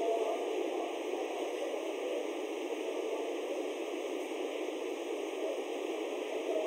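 Steady, static-like hiss of background noise, with no other event.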